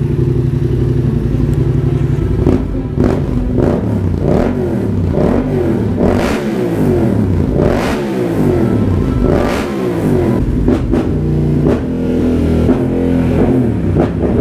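Yamaha MT-07's 689 cc parallel-twin engine, warmed up, breathing through an Arrow exhaust silencer, inside a garage. It idles steadily for about two seconds, then is revved again and again in quick throttle blips, the pitch rising and falling each time.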